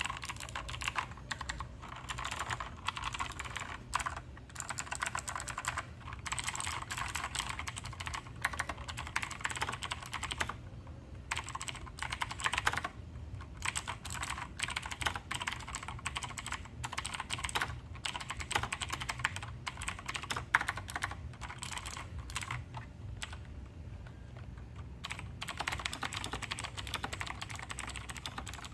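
Razer BlackWidow Tournament Edition Chroma V2 mechanical keyboard with Razer Green clicky switches being typed on: fast, continuous runs of key clicks with a few brief pauses.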